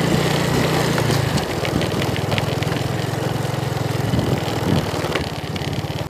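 Motorcycle engine running while riding a rough dirt track, with scattered knocks and rattles from the ride; the sound stops abruptly at the end.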